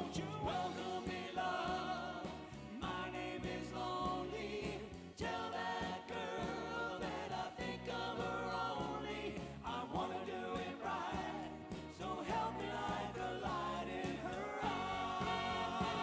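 Oldies band playing a 1950s-style doo-wop ballad, with a vocal group singing in close harmony over the instruments.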